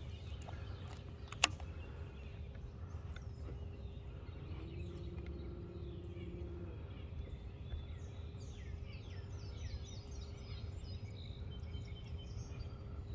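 Birds chirping in quick series of short, falling calls through the second half, over a low steady rumble with a faint hum. A single sharp click about a second and a half in, and a brief low tone near the middle.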